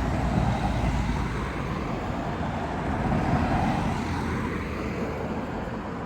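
Road traffic going past: a steady rushing noise with a low rumble that swells and eases off around the middle.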